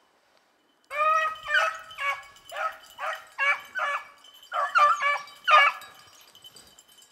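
A beagle barking, a quick run of about ten high yelping barks that starts about a second in and stops near six seconds.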